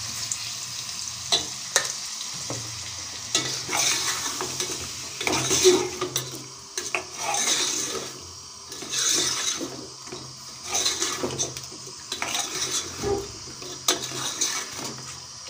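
A steel spoon stirring chicken pieces through a thick masala gravy in a metal pot on a gas burner, while the chicken and masala are frying. There are repeated wet scraping strokes over a sizzle, with a few sharp clicks of the spoon against the pot.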